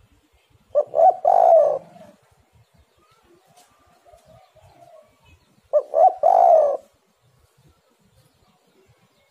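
Spotted dove cooing twice, about five seconds apart; each call is two short notes followed by a longer note.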